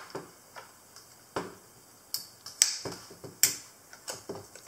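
A string of sharp clicks from a Canon Pellix QL 35 mm SLR being handled as its hinged metal film back is swung shut and latched, the two loudest clicks in the middle.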